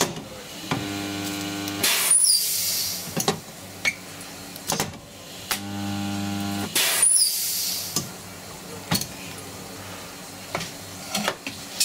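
Welder laying two short welds on car-body sheet steel: each time a steady electrical hum starts, then about a second of loud arc crackle and hiss. Scattered light clicks and taps come between the two welds.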